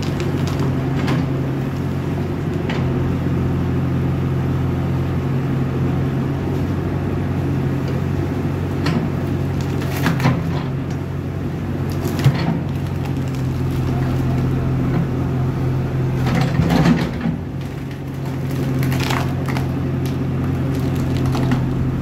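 JCB backhoe loader's diesel engine running steadily under load while the backhoe bucket pulls out a tree stump. Cracking and crunching of roots and wood comes through every few seconds, sharpest about halfway through.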